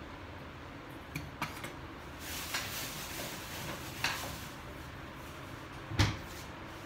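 Kitchen handling noises: a few light clicks and clatters, a brief noisy rustle, and a louder knock about six seconds in.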